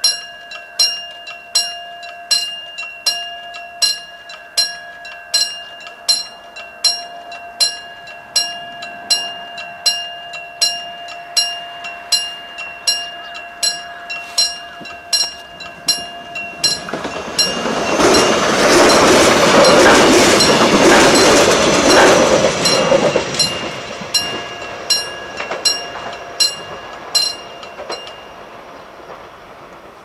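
Railroad crossing warning bell ringing steadily, a little under two strikes a second. A train passes through the crossing, loudest from about 17 to 23 seconds in, with wheels clattering over the rails. The bell stops shortly before the end as the crossing clears.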